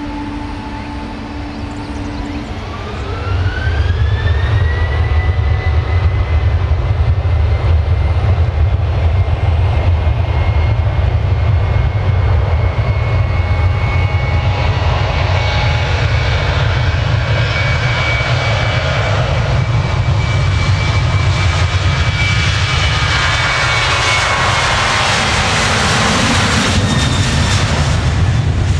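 Boeing 737-800's twin CFM56-7B turbofans spooling up to takeoff thrust: about three seconds in, a whine rises in pitch and then holds steady over a loud low rumble. The engine noise grows fuller as the airliner accelerates down the runway and passes close near the end.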